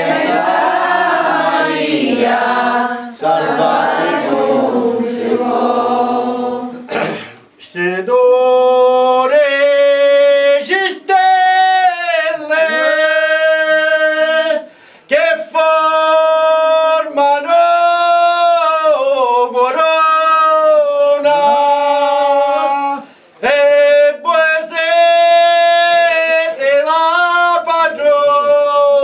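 Men singing a Sicilian devotional song to the Madonna unaccompanied. Several voices sing together at first; after a brief break about seven seconds in, one clear line of long, held, ornamented notes carries on, pausing briefly twice.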